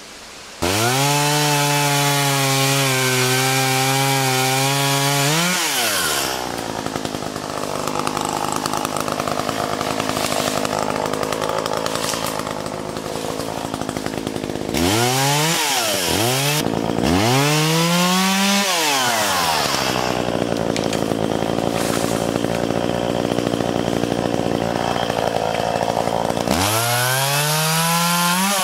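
Gasoline chainsaw cutting brush and saplings. It revs to full throttle, then runs lower and rougher under load while cutting, with several quick throttle blips up and down between cuts.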